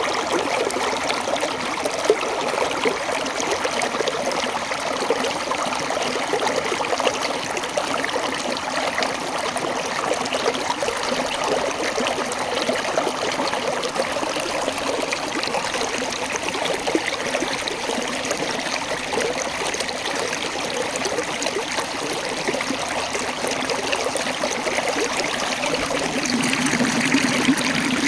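Water of a small waterfall running and splashing over rocks in a steady rush, getting slightly louder near the end.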